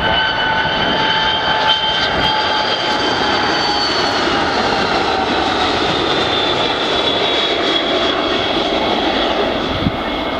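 Airbus A300 freighter's twin turbofan engines at approach power as it flies past low on final approach. The jet whine is loud and steady, and its pitch falls slowly as the aircraft passes.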